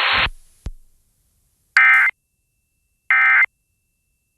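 A hiss cuts off with a click, then two short bursts of Emergency Alert System end-of-message data tones, each a rapid warbling buzz about a third of a second long, sent a second and a half apart. They are the "NNNN" digital code that closes an EAS alert.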